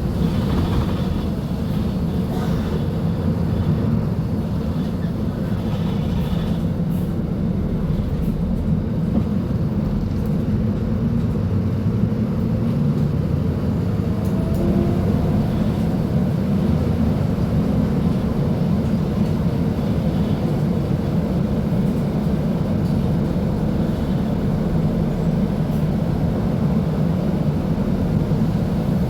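Diesel engine of a Mercedes-Benz OF-1724L BlueTec 5 bus running with a steady low rumble, with faint rattles over it.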